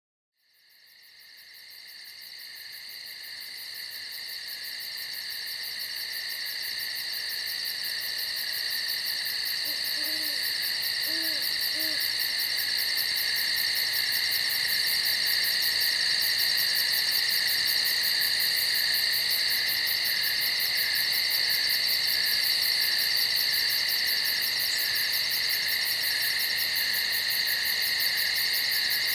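Steady, dense chorus of night insects trilling, fading up from silence over the first several seconds and then holding. A short run of soft, low owl hoots comes about ten to twelve seconds in.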